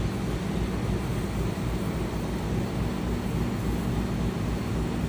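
Steady low hum of ship's machinery, with a constant drone and no breaks.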